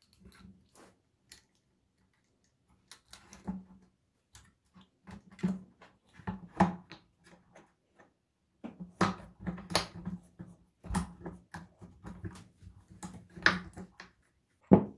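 Scattered clicks and knocks of metal parts being handled as an electric scooter's rear wheel is refitted and its axle bolt pushed through the frame and hub, with a sharp knock near the end.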